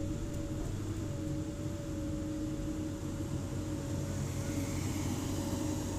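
Komatsu hydraulic excavator running steadily while digging, heard from the operator's cab: a constant engine drone with a steady whine above it.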